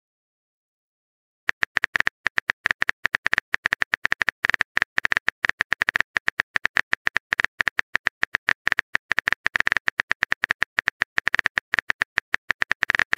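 Phone keyboard typing clicks: a rapid, irregular patter of short taps starting about a second and a half in.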